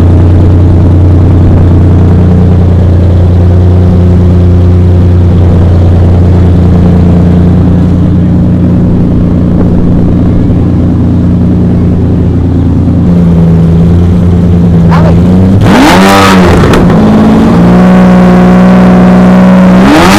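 Car engine idling very close to the microphone, loud enough to overload the recording; the idle steps down to a lower pitch about 13 seconds in, then the engine is revved up and back twice near the end.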